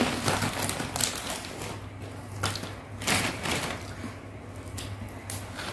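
Close-miked chewing of rujak cingur, with wet mouth clicks and smacks in an uneven run, over a faint steady low hum.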